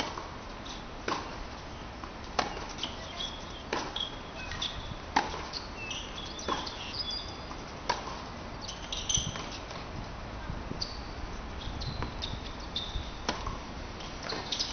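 Tennis rally on a hard court: the ball popping off rackets in an even rhythm, a little more than a second apart, with short high squeaks from players' shoes in between.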